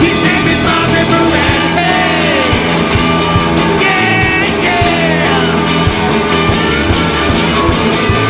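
Live blues-rock band playing: electric guitars, bass and drums under an amplified blues harp (harmonica) played into a hand-cupped microphone, its notes bending and sliding.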